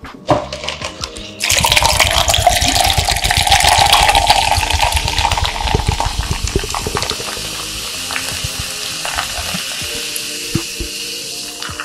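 Canned soda poured from a height into a plastic cup, a splashing, fizzing stream that starts suddenly about a second and a half in. It is loudest for the first five seconds, then settles into a steadier, quieter fizz as the cup fills.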